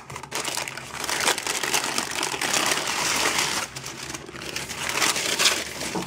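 Sheets of baking parchment crinkling and rustling under the hands as rolled shortcrust pastry is pressed into a tart ring and the top sheet is peeled away.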